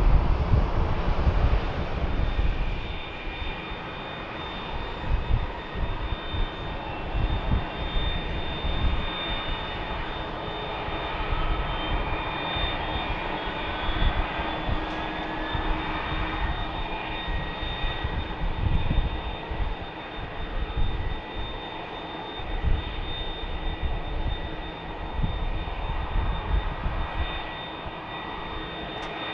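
Airbus A320-214's CFM56 turbofan engines running at low taxi thrust as the jet turns onto the runway: a steady jet whine with thin high tones, some slowly sliding in pitch, over an uneven low rumble.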